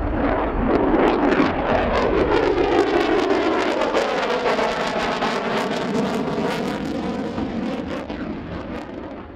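Lockheed Martin F-35A fighter flying past overhead: the jet noise of its single F135 turbofan engine is loud with a ragged crackle, shifts in tone as the jet passes, and fades over the last second or so.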